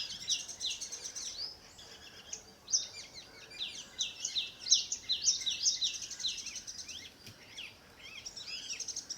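Small birds chirping in quick runs of high, falling notes, with looser scattered calls near the end.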